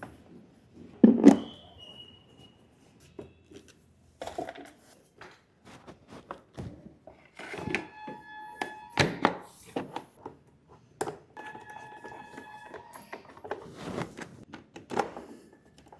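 Knocks and clicks of parts and tools being handled while the airbox cover and its screws are refitted after the air filter install: a loud double knock about a second in, then scattered clicks and knocks. A steady high tone sounds twice in the second half, each time for a second or two.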